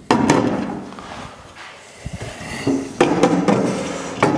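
An aluminum dry box being lifted and handled, making hollow metal knocks and rattles: one sharp knock at the start and another about three seconds in.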